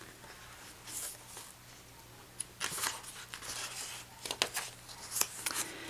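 Paper rustling and a few soft clicks as the pages of a picture book are handled and turned.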